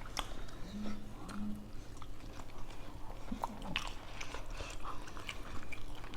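People chewing and biting food quickly, with small wet mouth clicks and smacks. About a second in there are two short closed-mouth hums.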